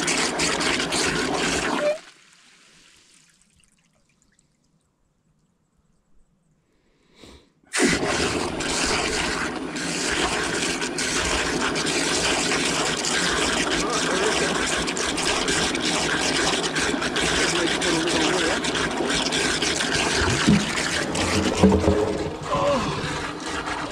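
Water running in through a stock water trough's float valve as the trough fills, a steady rushing, splashing flow. The sound cuts out about two seconds in and comes back near eight seconds.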